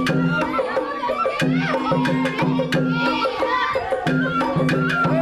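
Sawara-bayashi festival float music: frequent sharp drum and gong strikes over a high melody that bends in pitch, with low held tones coming and going in stretches of about a second.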